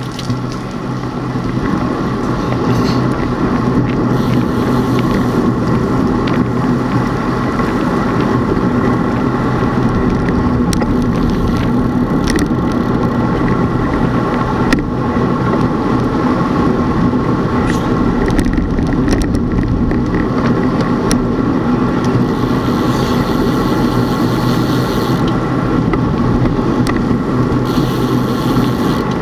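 Steady road-travel noise, a constant hum with rushing noise, as of riding along a road at an even speed.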